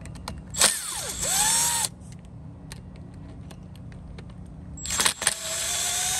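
Cordless power driver spinning out the screws of a Jeep's locking-hub cover. It runs in two short bursts, about a second long near the start and about two seconds long near the end. Each burst is a motor whine whose pitch dips and then climbs as it spins up.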